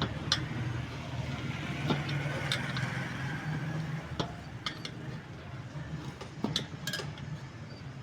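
Light metal clinks and taps from hand work on a spoked motorcycle wheel, scattered unevenly, over a steady low hum.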